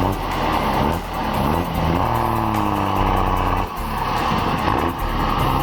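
Heavily loaded truck's engine straining under load on a steep climb, its pitch sagging slowly over a couple of seconds, with two brief drops in loudness.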